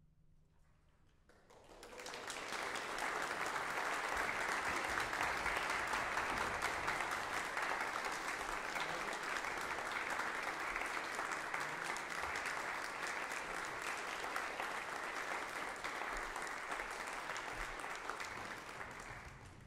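Audience applause that starts about two seconds in after a brief hush, holds steady, and tails off near the end.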